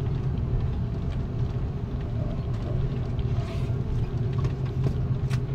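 Steady low rumble inside the cabin of an Airbus A330-300 rolling down the runway after touchdown, from the engines and the wheels on the runway.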